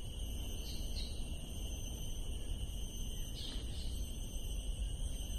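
Steady high-pitched drone of insects, with a couple of faint short chirps, over a low rumble of wind and handling noise on the phone microphone.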